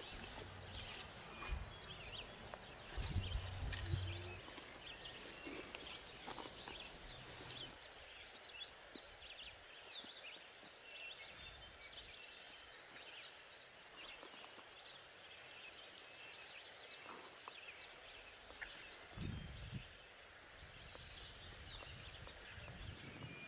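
Quiet open-air ambience with small birds chirping in short quick series several times, over faint rustling and clicking of hands picking figs off dry, stony ground, with a few soft thumps.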